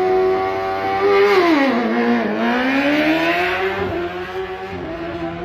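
Racing engine running at high revs. About a second in its pitch drops sharply as the throttle is lifted, then climbs back as it accelerates again and holds steady.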